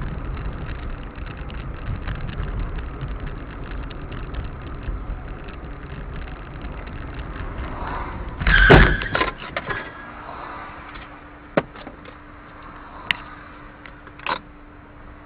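Dash-cam audio inside a car: low engine and road rumble, then about nine seconds in a loud thump with a second of rattling as the car bumps into the back of the SUV ahead at low speed. A few short sharp knocks follow near the end.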